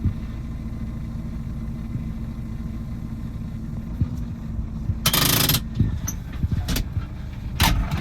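Excavator's diesel engine running with a steady low rumble. About five seconds in comes a loud half-second rush of noise, followed by a few sharp knocks near the end.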